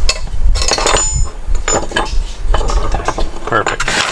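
Light metal clicks, clinks and scrapes from the old riveted shifter plate being worked loose and pulled out of the floor shifter, in a string of short knocks.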